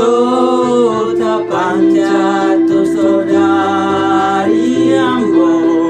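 A singing voice holding long, wavering notes in a spiritual song, over a steady sustained accompaniment tone.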